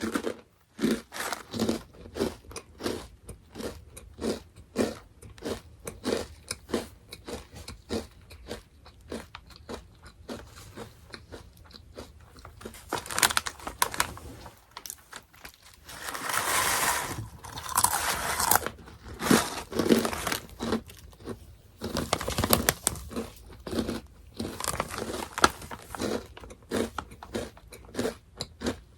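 Close-up crunching and chewing of Orion Mala Chicken Pop, a crunchy snack, as a series of sharp bites and crunches. There are a couple of longer, noisier stretches a little past halfway and again about three-quarters in.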